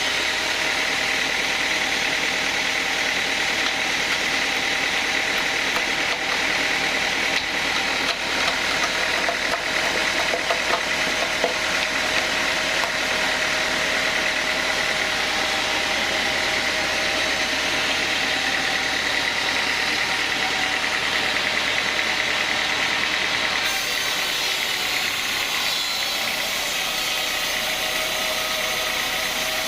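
Sawmill band saw machinery running steadily, with a steady high whine over the motor noise; the sound shifts slightly about 24 seconds in.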